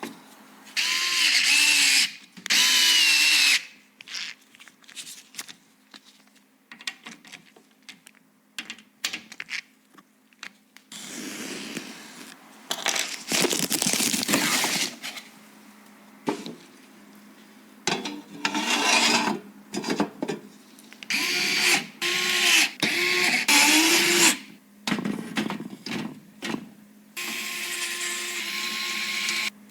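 Small electric screwdriver driving screws in short bursts, about six runs of one to four seconds each, its motor whine rising and falling as each screw seats. Light clicks and handling knocks fall between the runs.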